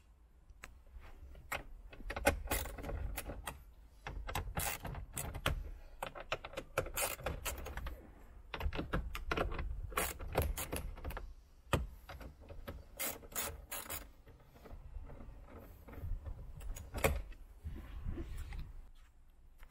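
A hand tool undoing the screws that hold a factory car head unit in the dash: repeated ratcheting clicks and rasping in bursts with short pauses between.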